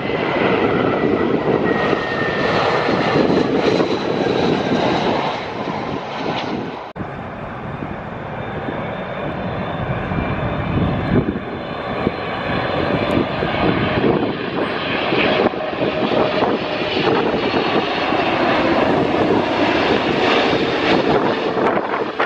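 Jet airliners on final approach passing low overhead: loud engine rumble with a high whine that falls in pitch over the first few seconds. After a sudden cut about seven seconds in, a second jet, a Boeing 777 with its landing gear down, comes in with a steady whine and rumble that grows louder toward the end.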